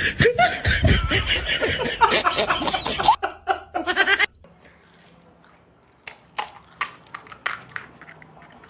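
Laughing with a mouthful of food for about four seconds, cut off abruptly. After a pause, a few sharp crunches of crisp pani puri shells being bitten and chewed.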